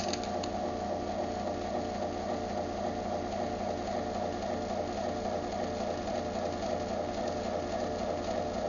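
Craftsman 53915DM garage door opener's motor running steadily through a close cycle, triggered by its remote: a continuous, even mechanical hum.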